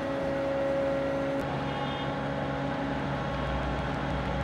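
Tracked lifeboat launch-and-recovery tractor running, a steady machine whine with an engine rumble underneath; the whine changes pitch about a second and a half in.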